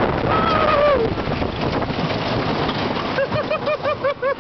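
Wooden roller coaster train rattling along its track, with wind buffeting the microphone. About half a second in, a rider gives a short falling cry, and in the last second or so riders laugh in quick bursts.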